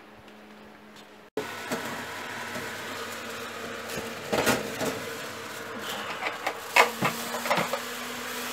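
Fan-forced oven's fan running with a steady hum, then several knocks and clatters from about halfway through as a foil-covered metal baking tray is slid out over the oven rack and set down on the cooktop.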